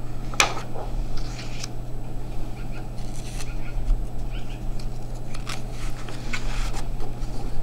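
Scattered light rustles and clicks of paper sheets being handled, over a steady low hum of room noise.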